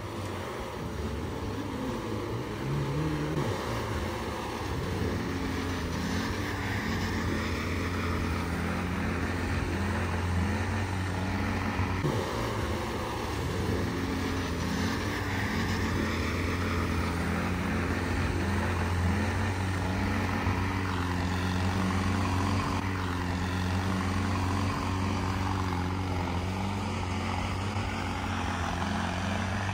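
Off-road 4x4 engines running and revving as the vehicles climb through snow: a steady low hum with the pitch rising and falling again and again.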